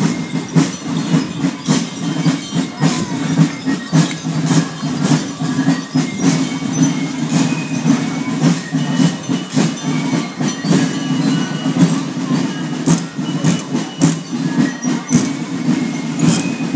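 Many small costume bells jingling and clattering as a troupe of Swabian carnival fools marches past. It is a dense, irregular clatter with short bright ringing tones, over a steady low hum.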